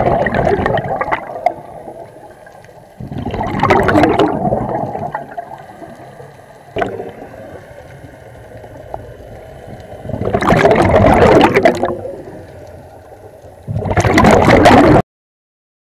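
Scuba regulator exhaust bubbles heard underwater: four bursts of bubbling a few seconds apart, one per exhalation of the diver. The sound cuts off suddenly near the end.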